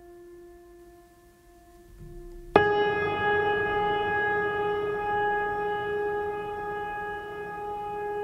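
Calm background music of held, ringing tones. A soft sustained note, then about two and a half seconds in a louder note sounds suddenly and rings on with many overtones.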